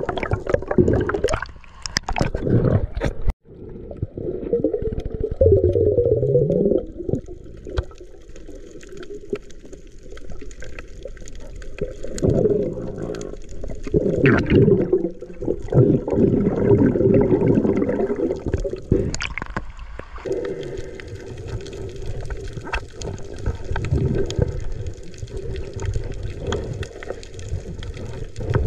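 Muffled water sloshing and gurgling bubbles, as picked up by a camera underwater, coming in irregular surges; the sound drops out briefly a little over three seconds in.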